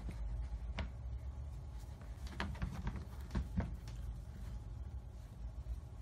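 A few soft rustles and light taps from a hand petting a cat on a woven mat in a wire crate, as the cat swats at the hand, over a low steady hum.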